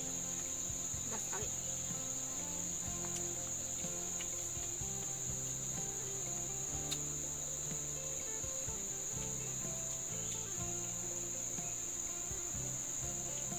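Steady high-pitched chorus of forest insects, one unbroken trill, with a single sharp click about halfway through.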